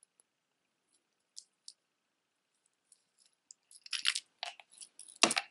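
Costume-jewelry necklaces being handled: a few faint clicks of beads at first, then, in the last second and a half, a quick run of clinks and rattles as beaded wire and metal chain are moved about on the table, loudest just before the end.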